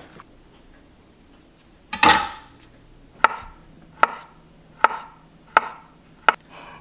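A knife chopping on a cutting board: one longer, louder knock about two seconds in, then five sharp, evenly spaced chops a little under a second apart.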